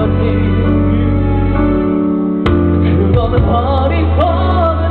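Live band playing a slow song: a singer's voice through the PA over sustained held chords and a deep bass, with one sharp hit about halfway through and the voice coming back strongly after it.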